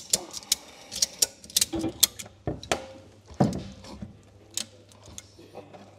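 Ratchet strap being worked, its metal hook and ratchet making a string of irregular sharp metallic clicks. The clicks are thickest in the first three seconds and thin out after.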